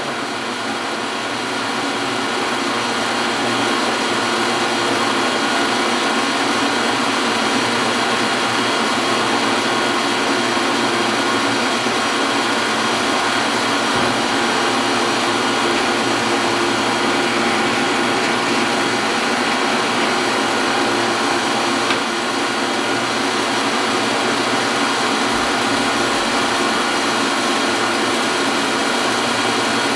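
Metal lathe running under power with a steady gear whine, building up over the first couple of seconds and then holding even.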